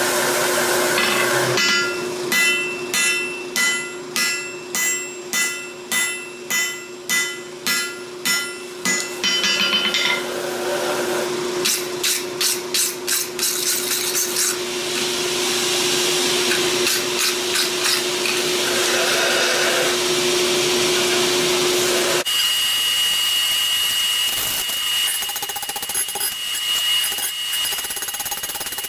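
Hammer blows on hot steel at the anvil, a regular run of about twelve strikes, each ringing briefly, then a shorter, quicker run, over the steady drone of the forge. The drone stops about two-thirds of the way through.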